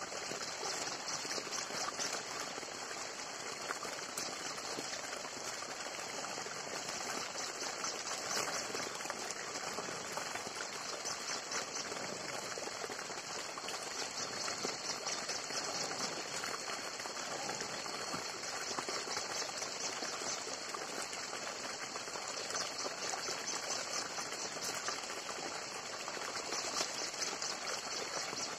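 Steady outdoor forest ambience: a continuous high-pitched, rapidly pulsing buzz over a soft rushing hiss, with a few faint ticks.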